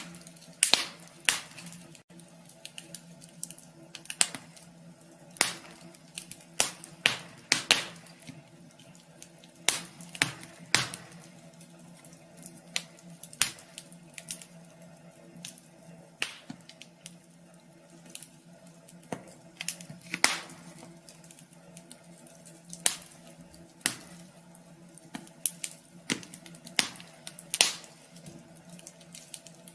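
Wood fire crackling in a wood stove: irregular sharp pops and snaps, sometimes single and sometimes in quick clusters, over a faint steady hum.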